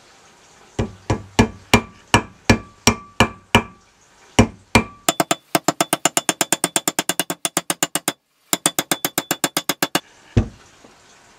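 Hammer striking a steel wedge driven into the top of a wooden mattock handle to lock it in the head. Ringing metal taps come at about three a second, then a fast run at about eight a second that breaks off briefly, and a single last knock near the end.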